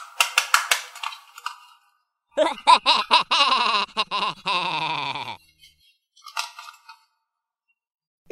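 Hard plastic toy parts clicking and snapping together as arms are fitted onto a plastic action figure, a quick run of sharp clicks. About two seconds in comes a loud, wavering, voice-like sound effect lasting about three seconds, its pitch sliding down.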